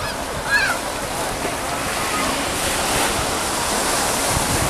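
Steady outdoor noise of wind and lapping water, with wind buffeting the microphone. About half a second in, a short high-pitched cry rises and falls.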